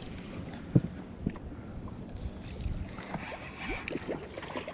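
A hooked king salmon thrashing and splashing at the water's surface beside a boat, with scattered sharp knocks over a steady rush of water noise.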